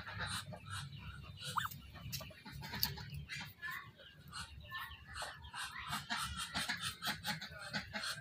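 Muscovy ducks foraging around a feed tray: a run of short chirps and clicks, with a brief rising call about one and a half seconds in, over a low steady hum.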